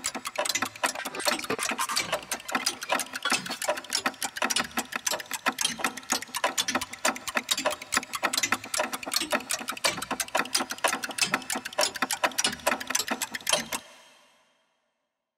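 Fast, dense mechanical clicking, many clicks a second in an uneven rhythm, that stops abruptly near the end.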